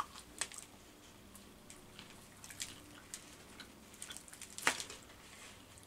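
Quiet eating sounds: crispy fried chicken being bitten and chewed, with scattered small crunches and mouth clicks and one louder click nearly five seconds in.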